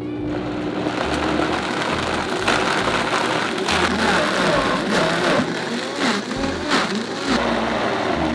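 High-powered countertop blender running, ramped up from low speed toward high, churning raw rabbit meat, eggs and cream into a smooth forcemeat. It grows louder over the first second, then runs on steadily with a wavering, churning pitch as the mixture turns over.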